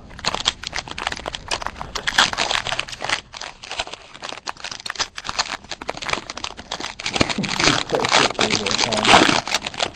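Foil trading-card pack wrapper crinkling and tearing as it is opened by hand: a continuous run of rustles and crackles.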